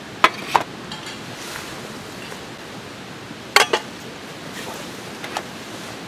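Metal clinks of an aluminium rice container and cooking pot being handled: two sharp clinks near the start, two more about three and a half seconds in, and a lighter one near the end, over a steady hiss.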